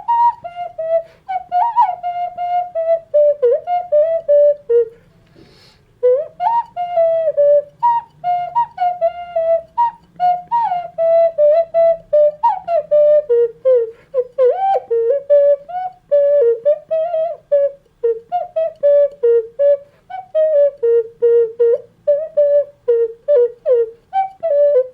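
A ceramic ocarina playing a melody of quick, separated notes with slides between them, pausing briefly about five seconds in before carrying on.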